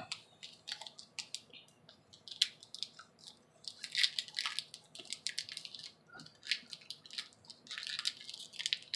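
Shiny foil wrapper of a 2019 Topps baseball card pack crinkling and crackling in irregular short bursts as fingers pick and pull at its sealed end, trying to tear it open by hand.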